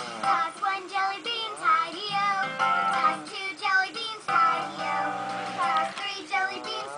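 A child singing a children's song over backing music.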